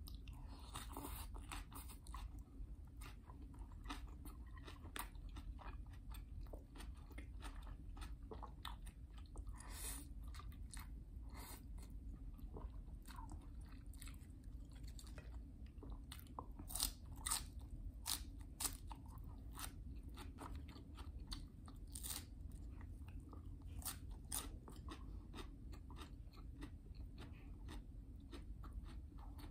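A person chewing and biting mouthfuls of Indomie noodles and Spam, with a steady run of small wet crunches and mouth clicks, a few louder ones in the second half.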